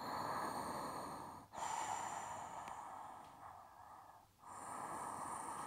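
A woman breathing audibly while holding a yoga bridge pose: three long breaths in a row, the middle one the longest.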